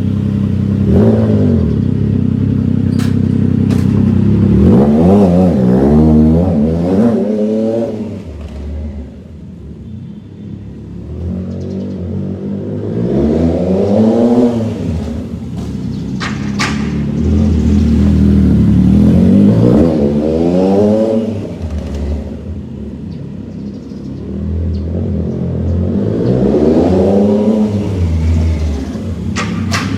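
Triumph Trident 660's three-cylinder engine through a full aftermarket free-flow exhaust, ridden around and accelerating repeatedly. The engine note climbs in pitch with each pull, then drops back, and grows louder and quieter as the bike comes near and moves away.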